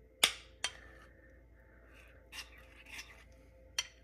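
A metal spoon clinking and scraping against a ceramic bowl of thick lentil dal: one sharp clink about a quarter second in, the loudest, then about four softer clinks and a short scrape.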